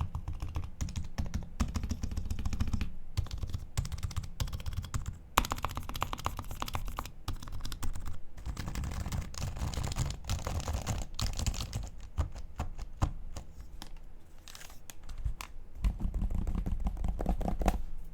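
Typing on an HHKB Professional 2 Type S keyboard with Topre 45 g Type S electrostatic-capacitive switches, sliders lubed with Krytox 205g0 and a Poron sheet fitted under the plastic plate. Continuous quick keystrokes, busiest about five seconds in and again in the last couple of seconds.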